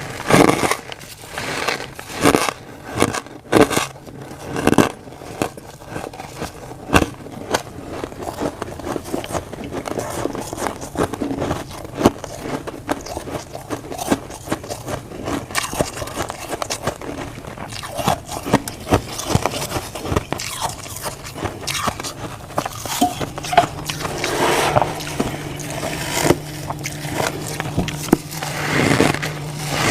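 Crunchy freezer frost, grown with a humidifier, being scraped and bitten: dense, irregular crunching and crackling. A low steady hum comes in about two-thirds of the way through.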